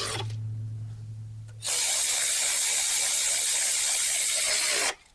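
Cordless electric ratchet running bolts down on an engine cover: a low hum for the first second and a half, then a loud steady whir for about three seconds that stops abruptly.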